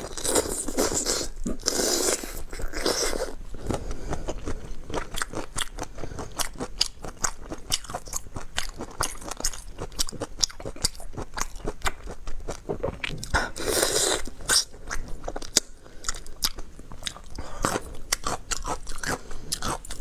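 Close-up mouth sounds of eating raw marinated mantis shrimp: shells crunching between the teeth, wet biting and chewing, and sucking at the shell, with louder spells about a second in and again past the middle.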